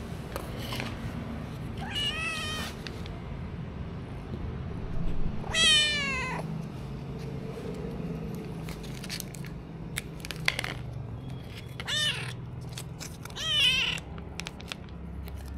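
Kittens meowing, four calls in all, the longest and loudest about six seconds in. A few short sharp clicks fall between the calls.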